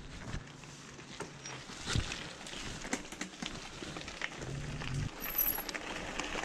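Bicycle tyres rolling over a gravel path, with scattered crunches and clicks. A low hum comes in faintly at the start and again, louder, at about four and a half seconds.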